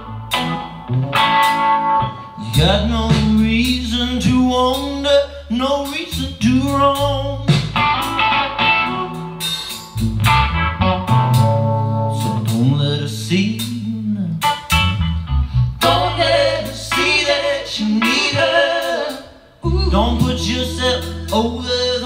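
A blues-rock song with a man singing over guitar, drums and a deep, sustained bass line, played back from a BeoVision Harmony television through Bang & Olufsen loudspeakers.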